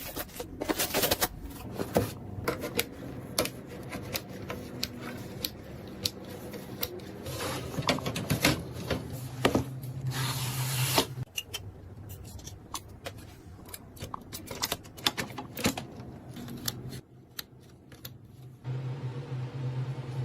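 Irregular clicks, taps and rubbing of computer hardware being handled and fitted together, with a steady low hum about halfway through and again near the end.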